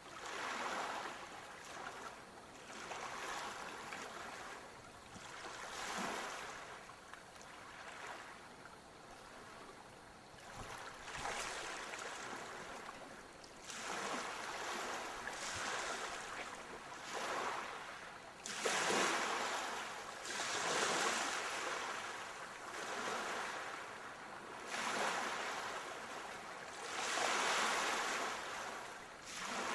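Sea waves washing in on a shore, a hiss of water that swells and falls away every couple of seconds, with the biggest surges about two-thirds of the way through and near the end.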